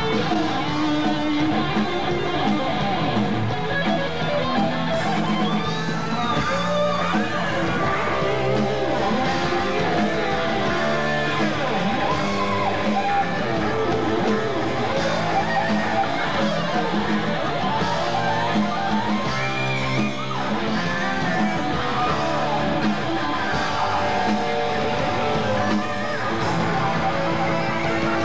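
Heavy metal band playing live: electric guitar lead with many bent notes over the band's bass and rhythm guitar.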